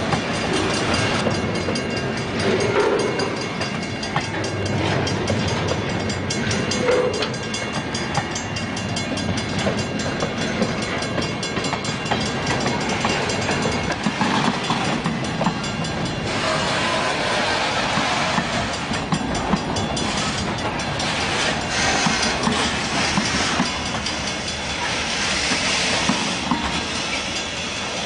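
Freight train cars rolling past at close range: a steady rumble of steel wheels on rail, with repeated sharp clacks as wheels cross rail joints and louder hissing stretches about two-thirds of the way through and near the end.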